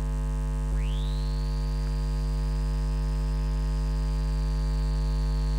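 Steady low electrical mains hum. Just under a second in, a thin high whine slides up quickly and then holds steady over it.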